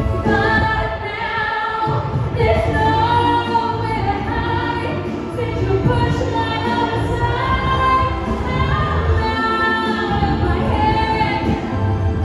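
A woman singing live into a microphone, amplified through a PA system over instrumental accompaniment, holding long notes.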